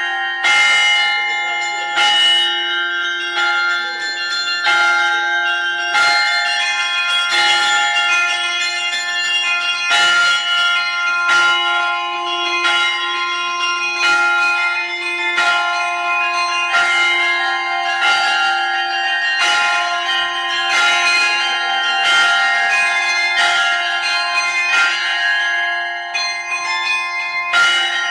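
Monastery church bells ringing: several bells of different pitches struck over and over, about once every second and a half, over a steady low hum.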